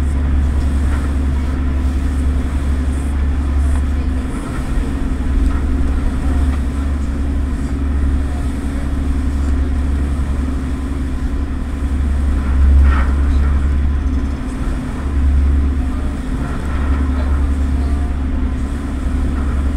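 Harbour passenger ferry's engines running steadily underway, a constant low drone and hum heard from on deck.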